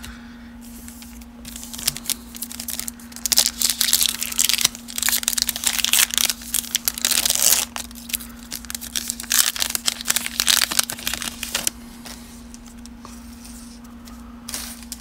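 Foil wrapper of a 2020 Donruss baseball card pack crinkling and tearing as it is pulled open by hand. The rustling runs in quick bursts from about a second in and stops about three-quarters of the way through, with one brief rustle near the end.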